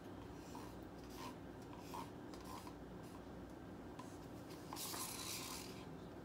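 Wooden stir stick scraping acrylic paint out of a small plastic cup into a pour cup: several short scrapes, then a longer, louder scrape about five seconds in.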